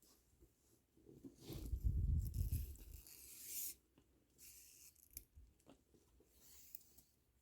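Plastic pony beads of a kandi cuff rustling and clicking as the cuff is handled and restrung. A rustling burst with a low bump comes about a second in and lasts a couple of seconds, followed by light scattered clicks and a softer rustle near the end.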